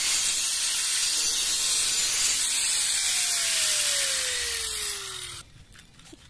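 Angle grinder with an abrasive disc grinding along the edge of a porcelain tile to smooth it, a loud high hiss. Over its last few seconds a whine slides steadily down in pitch, and the sound cuts off about five and a half seconds in.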